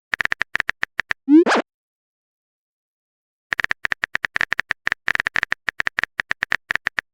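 Phone-keyboard typing clicks in quick, even runs, about ten a second, with a short rising 'bloop' message tone about a second and a half in. The tone marks a chat message being sent.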